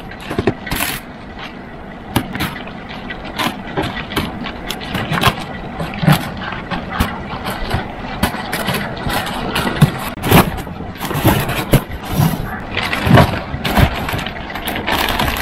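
Plastic stretch wrap and a plastic bag crinkling and tearing by hand as a cardboard parcel is unwrapped, in quick irregular crackles.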